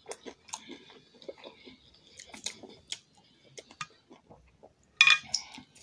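Close-miked chewing of a mouthful of food, with small wet clicks and mouth noises, and one louder short burst of noise about five seconds in.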